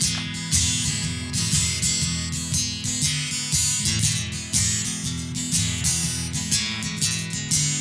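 Live band playing the opening of a song: acoustic guitar strummed in a steady rhythm, without singing.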